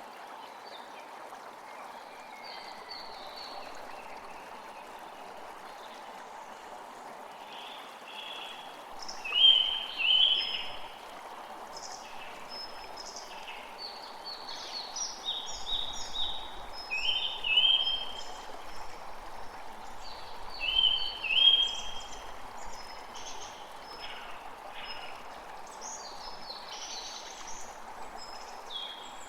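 Many birds chirping and calling in short repeated notes over a steady, even rushing background of wind or running water, with a few louder calls near the middle.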